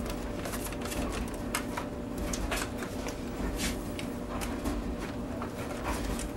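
Plastic VCR chassis being handled and turned over on a towel: irregular light clicks, knocks and rustling over a steady low hum.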